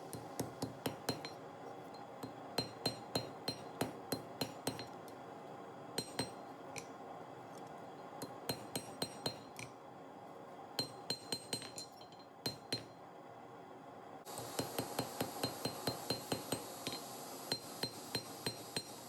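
A hammer striking a knife blade of lawnmower-blade steel on an anvil as the blade is forged, in quick runs of blows, each with a bright metallic ring.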